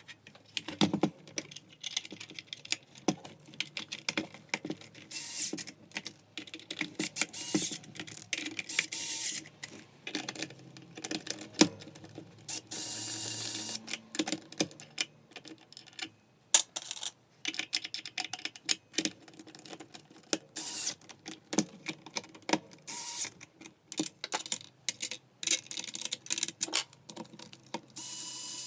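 Irregular clicks, taps and clatter of small parts and tools being handled on a Makita 9901 belt sander, broken by a few short whirs of an electric screwdriver. The longest whir is a bit past the middle, and another comes at the very end.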